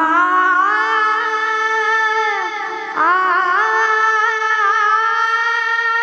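A boy's high singing voice in a wordless opening phrase of a varkari bhajan, with long held notes that bend and glide in pitch; a new phrase begins about three seconds in.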